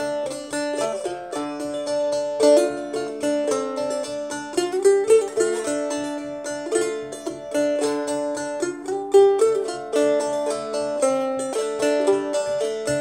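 Handmade banjo tuned to open D, picked in a steady run of quick single notes.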